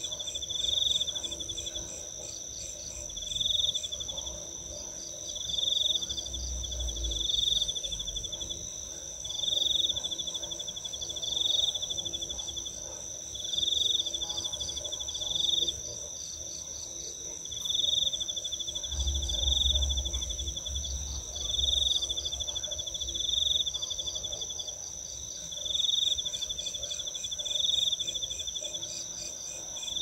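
Night insect chorus of crickets and belalang kerek calling back and forth: one insect keeps up a steady high trill while another calls in pulsed phrases that swell and fade about every two seconds.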